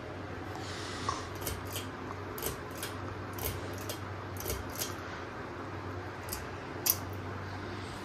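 Ceiling fan running with a steady low hum, while about a dozen sharp clicks and ticks sound as its pull chain and glass light globe are handled; the loudest click comes about seven seconds in.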